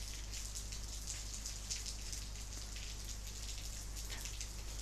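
Heavy rain falling, a steady dense hiss of many small drops heard through closed windows, with a steady low electrical hum underneath.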